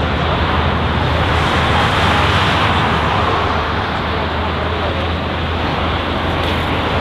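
Boeing 777 jet engine noise: a steady, loud roar that swells slightly about two seconds in.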